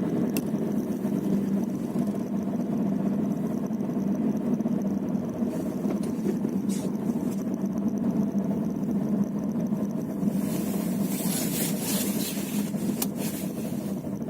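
Car driving, with steady road and running noise and a few faint knocks, the knocking that appears when the car is moving.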